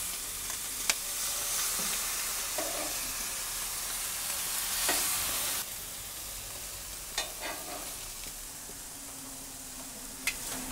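Raw burger patties sizzling as they are laid with metal tongs onto the very hot grates of a Campingaz 3 Series Classic EXSE gas grill, with a few sharp clicks from the tongs. The hiss drops a step about halfway through.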